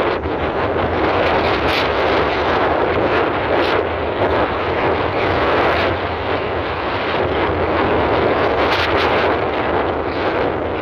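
Car driving along a stone-paved street: a steady loud rush of wind and tyre noise.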